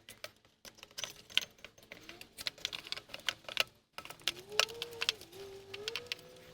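Irregular metallic clicks and clinks of a starter motor and hand tools being handled while the starter is fitted back into an engine bay, with a faint wavering squeak in the second half.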